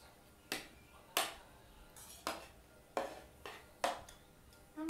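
Spoons clinking against plates as people eat, about six sharp clinks at uneven intervals.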